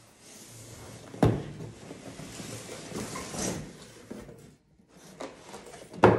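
A box being opened and handled: a sharp knock about a second in, then sliding and rustling, and a second, louder knock near the end.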